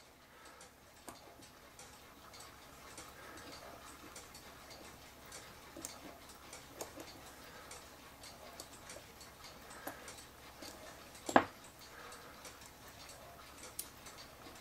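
Quiet, irregular light metallic clicks and ticks from the small brass stop lever and fan governor of a cuckoo clock's cylinder music box being worked by hand, with one sharper click about 11 seconds in.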